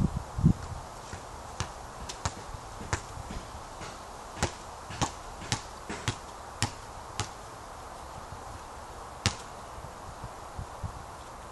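A basketball bouncing on a hard outdoor court: one dull thud about half a second in, then a string of short, sharp bounces about every half second, as when the ball is dribbled, thinning out to a few single bounces near the end.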